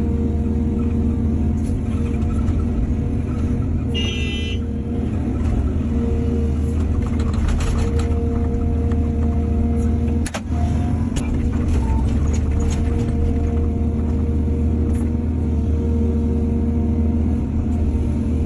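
Heavy diesel engine of an excavator running steadily under working load. A brief high-pitched squeal comes about four seconds in, and there is a short dip in the engine sound about ten seconds in.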